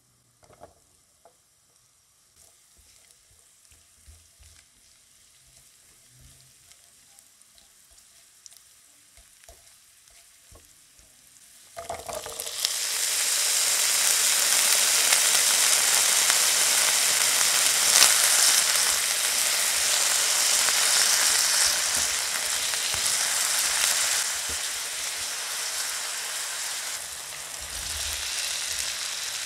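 Diced carrots in a little oil in a nonstick frying pan, faintly sizzling with a few small clicks. About twelve seconds in, diced potatoes go into the hot oil and a loud, steady sizzle starts, easing a little later on. A few soft thuds near the end as cubes of beefloaf are added.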